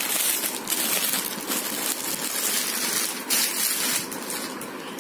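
Clear plastic packaging crinkling and rustling as it is handled, in uneven bursts, quieter in the last second.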